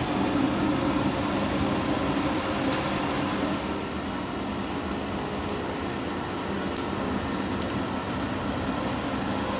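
Commercial charcoal igniter running with a steady mechanical hum while the charcoal inside catches fire.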